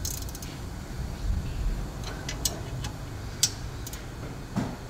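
A few sharp, irregularly spaced metallic clicks and ticks from hand tools working the rear brake caliper bolts.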